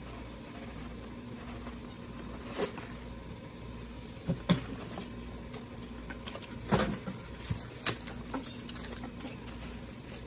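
Scattered clicks and knocks of a CPU cooler fan and its packaging being handled and unboxed, a few sharp ones standing out, over a steady low hum.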